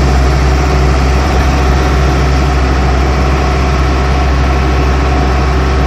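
Heavy engine idling steadily, with a deep low hum.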